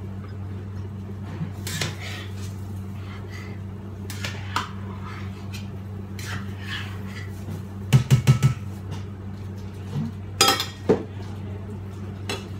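A metal cooking utensil clinking and scraping against a stainless steel pot, with a pot lid handled, in scattered sharp clatters; a quick run of loud clacks comes past the middle and two more near the end. A steady low hum runs underneath.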